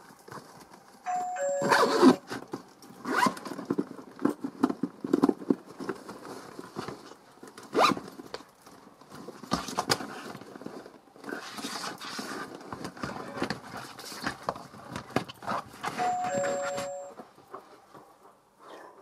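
Handling noise from a soft leather shoulder bag: irregular rubbing and clicking as it is opened and turned, with noisy stretches of zips being pulled. A short falling two-note tone sounds twice, about a second in and again about 16 seconds in.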